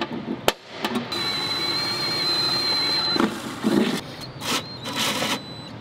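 Cordless drill spinning a 4-inch bimetal hole saw into the truck's fender: a steady high motor whine for about two seconds, then short stop-start bursts as the saw bites.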